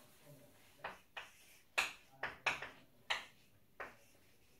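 Chalk writing on a chalkboard: about seven short, sharp chalk strokes and taps at irregular intervals, each a quick tick that fades at once.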